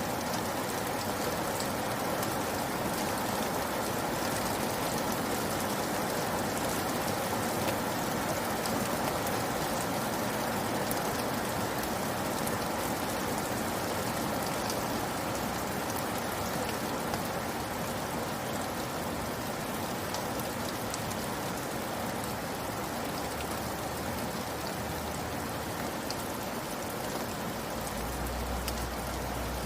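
Steady rainfall, an even hiss of rain with scattered individual drops pattering on a surface.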